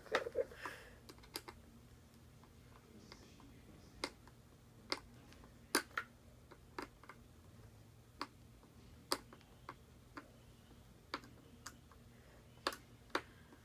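Irregular sharp clicks, about one a second, of a screwdriver and screw against a football helmet's hard plastic shell and metal facemask as the visor's mounting screw is driven in, with a short bout of handling noise at the start.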